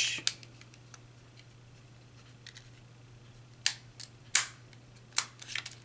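Sharp plastic clicks of an auxiliary contact block being pushed onto and worked off a magnetic contactor. There is one click just after the start, then a cluster of five or six clicks a little past halfway.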